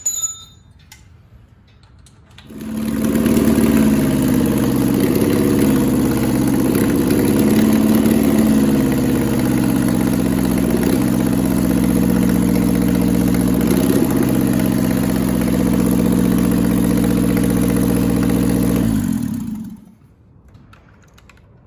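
Car engine running steadily at a fast idle for about seventeen seconds, with a couple of slight rises in pitch, then shutting off near the end.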